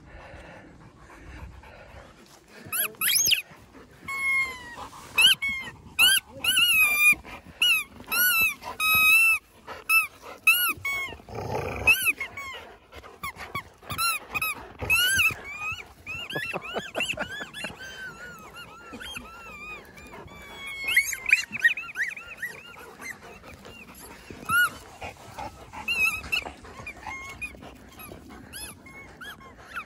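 Excited dogs whining and yelping in short, high-pitched, rising-and-falling calls, often a few a second in clusters, while they wait for a ball in play, with some growling mixed in.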